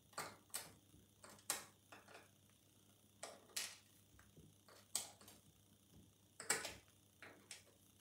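Faint, irregular clicks and ticks of metal tweezers picking up and setting down small brass lock pins in a plastic pinning tray.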